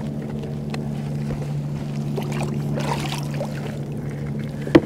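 Light plastic clicks and a brief splash of water as a folding fish-measuring board is opened and dipped over the side of a kayak, over a steady low hum.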